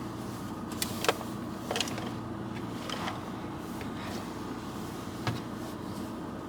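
Steady low hum of a vehicle's running engine heard from inside the cabin, with a few light clicks and taps scattered through it.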